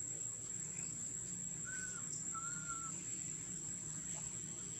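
Two faint short whistle-like animal calls a little under two seconds in and again about half a second later, over a steady background hum and a constant high-pitched whine.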